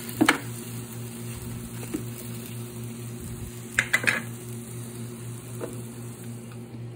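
A steady low appliance hum, with a few sharp clicks of a wooden spoon against the metal air-fryer basket as drumsticks are turned: one about a third of a second in and a quick cluster around four seconds.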